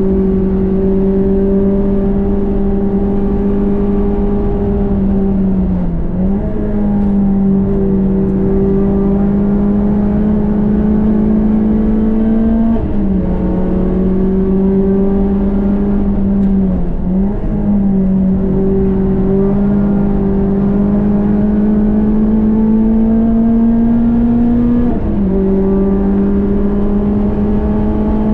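Renault Clio 197 Cup's 2.0-litre four-cylinder engine running hard on track. Its pitch climbs slowly and drops sharply at two gear changes, about halfway and near the end, and dips briefly twice between them.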